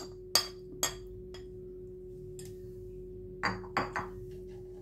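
Tomato pieces scraped off a ceramic plate with a spoon into a stainless steel mixer-grinder jar: a few sharp clinks of spoon and plate against the steel in the first second and a half, and a cluster of knocks about three and a half seconds in, over a steady low humming tone.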